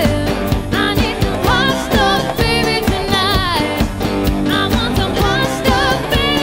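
Live cover band playing a pop-rock medley: a steady drum beat under the band, with a lead melody sung with vibrato.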